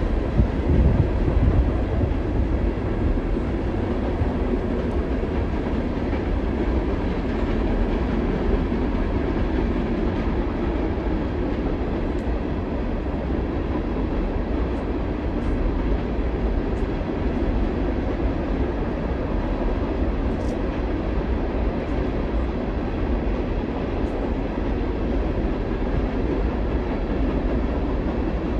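CPKC mixed freight train's cars rolling past, a steady rumble with no break.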